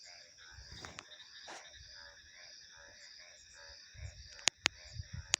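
A chorus of calling animals: rapidly repeating pulsed calls under a steady high pulsing trill. Three sharp, loud clicks near the end are the loudest sounds.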